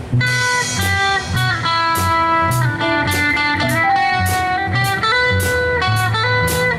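Live band playing a song's instrumental intro: an electric guitar melody of held notes over bass guitar and a steady drum kit beat.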